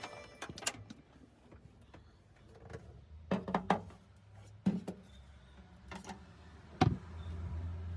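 A series of scattered sharp clicks and knocks, a few each second or two, the loudest nearly seven seconds in. A low hum comes up near the end.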